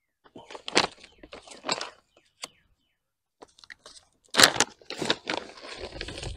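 Plastic bag of granular fertilizer crinkling and crunching as it is handled and opened, in several short bursts with sharp clicks, the loudest about four and a half seconds in.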